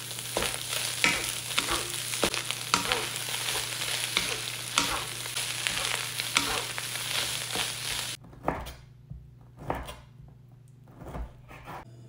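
Fried rice sizzling in a hot nonstick wok as it is stir-fried and tossed with a wooden spatula, the spatula scraping and tapping the pan many times. The frying stops abruptly about eight seconds in, followed by a few soft knocks.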